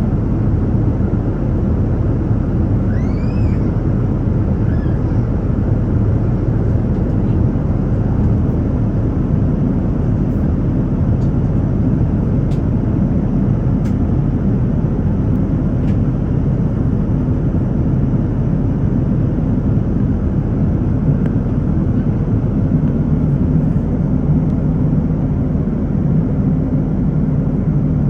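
Steady airplane cabin noise in flight: a constant low, rumbling drone from the engines and airflow, heard from a window seat.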